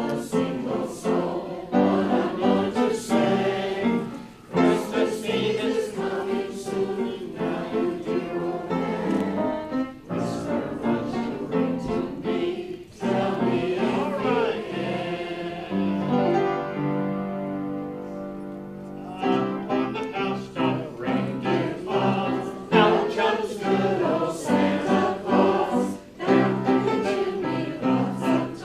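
A group of voices singing together, choir-style, with a long held note about 16 to 19 seconds in.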